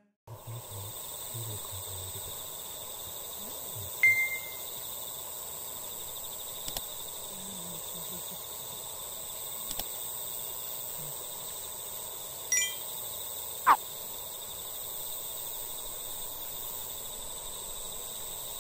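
Dusk outdoor ambience of steady high insect chirring, with a few short high notes over it, the loudest about 4 s in, and a quick downward whistle near the 14-second mark.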